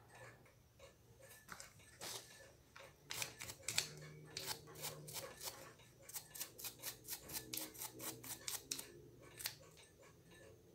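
A small stiff-bristled brush scrubbing a metal watch case in quick back-and-forth strokes, about four a second for a few seconds, with a few handling clicks before it.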